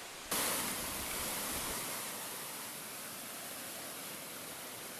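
Steady rushing hiss of running water that starts abruptly about a third of a second in, loudest at first and then settling slightly.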